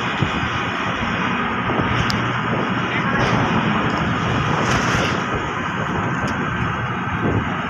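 Steady mechanical drone of a large ship's engines and machinery running alongside the pier, as a Coast Guard cutter readies to depart.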